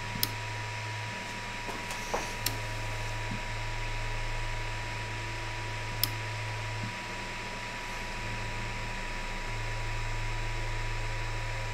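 Creality Ender-3 V2 3D printer auto-homing with a BLTouch probe: its stepper motors hum in spells as the axes move, over the steady noise of its cooling fans and a thin steady whine. A few sharp clicks come from the BLTouch probe pin.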